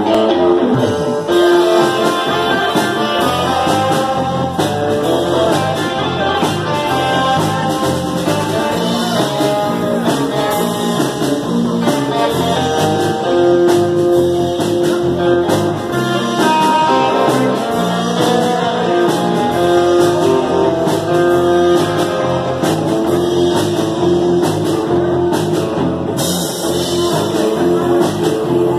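Live band playing amplified music: electric guitars over a drum kit, loud and continuous.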